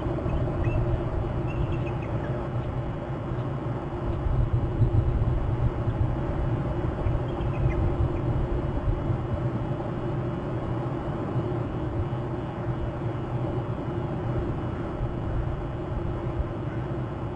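Steady low outdoor rumble picked up by the camera microphone, with a few faint high chirps in the first couple of seconds.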